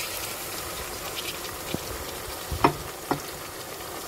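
Sliced onions frying in oil in an aluminium pot, sizzling steadily as a bowl of chopped tomatoes is tipped in. Two sharp knocks, a bowl or spoon against the pot, come a little over halfway through.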